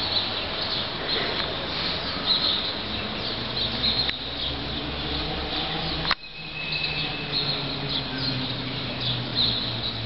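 Small birds chirping in short, repeated calls over a steady low hum, with one sharp click about six seconds in.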